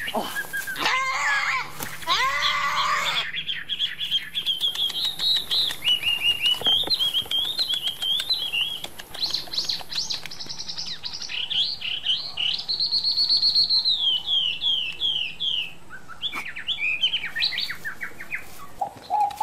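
A goat bleating a few times in the first three seconds. Then small birds chirp in quick runs of high notes through the rest, loudest about two-thirds of the way in.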